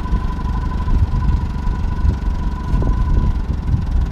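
Engine idling with a steady low rumble, a thin steady whine running above it.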